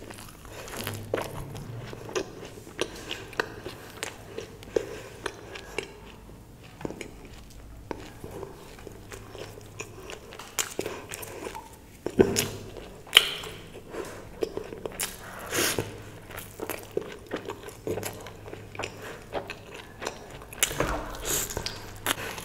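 A person eating close to the microphone: chewing and biting food, with many irregular sharp mouth clicks and short bursts of crunching and smacking.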